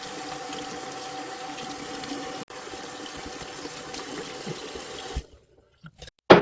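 Colton mini cordless air gun with a brushless motor running steadily: a rush of air with a faint steady whine, broken for an instant about two and a half seconds in, then switched off about five seconds in, followed by a few clicks.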